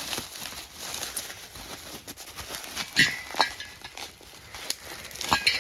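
Light rustling with scattered clicks and knocks as new snowmobile cylinder heads are handled and lifted out of their box, with sharper handling noises about three seconds in and again near the end.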